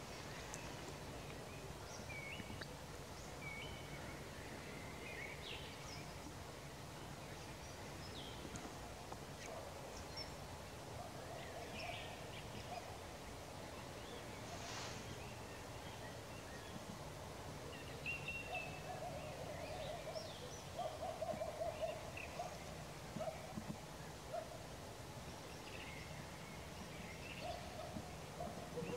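Songbirds chirping and singing at dusk, with a run of short, low hooting calls in the second half that come loudest about two-thirds of the way through. A faint steady low hum runs underneath.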